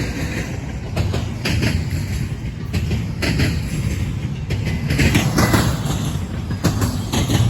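Double-stack intermodal freight train rolling past at close range: a steady low rumble of the cars, with wheels clacking over rail joints every half second to second.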